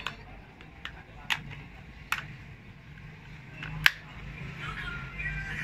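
Four sharp clicks of hard plastic as a cheap power bank's casing is handled and pried at, the last one the loudest.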